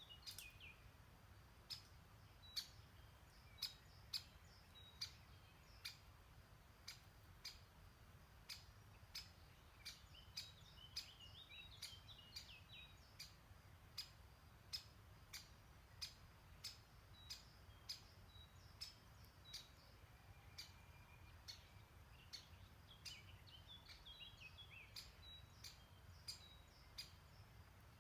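Faint songbirds twittering in short phrases a few times, over a regular faint clicking that comes roughly once or twice a second.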